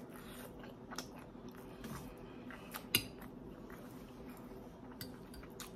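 A person eating fried General Tso chicken up close: faint chewing and biting with a few short, light clicks, the sharpest about three seconds in, over a faint steady hum.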